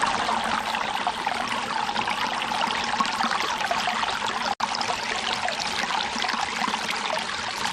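Steady rush of flowing creek water close to the microphone, cut for an instant about halfway through.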